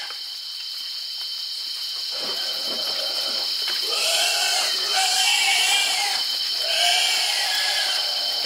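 An animal calling twice in long, wavering cries, the second shortly after the first ends, over a steady high-pitched buzz.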